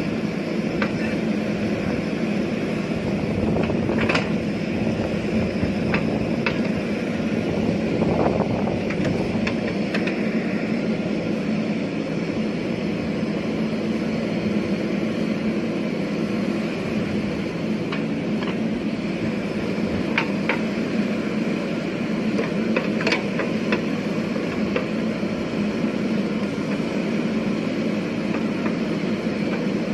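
JCB 3DX backhoe loader's diesel engine running steadily under load while the backhoe arm digs and swings soil, with a few sharp clanks from the digging arm and bucket.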